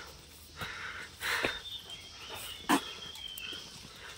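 Footsteps on a concrete path: a few separate steps and scuffs while walking, with a thin high steady tone in the background around the middle.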